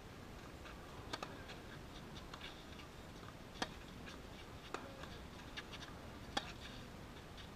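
Tennis serve and rally: rackets striking the ball, heard as a series of faint sharp pops a second or more apart.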